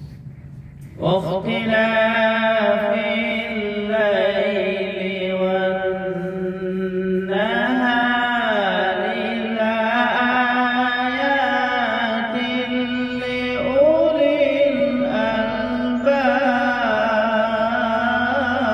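A man reciting the Quran in the melodic tajweed style. About a second in he starts holding long, drawn-out notes with wavering, ornamented pitch, in several long phrases.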